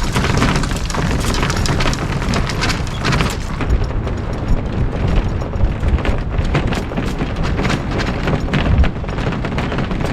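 Wind buffeting the camera microphone: a loud, rumbling roar with irregular gusty thumps, and the hiss above it thinning out about three and a half seconds in.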